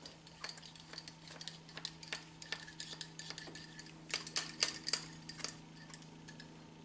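Metal cleaning rod with a dry patch being pushed and worked through the bore of a .45 caliber muzzleloading pistol barrel, giving irregular light metallic clicks and taps. The clicks come thickest from about four to five and a half seconds in.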